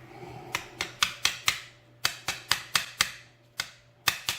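A quick, irregular run of sharp metallic clicks and taps, about fifteen of them, as the pin springs are worked out of a Master Lock 7050 padlock.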